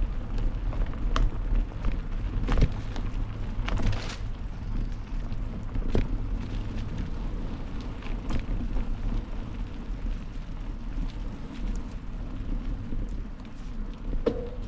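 Mountain bike riding over a dirt forest trail: a steady low rumble of wind on the microphone and tyres rolling, broken by sharp rattles and knocks from the bike going over bumps. The knocks come most often in the first few seconds.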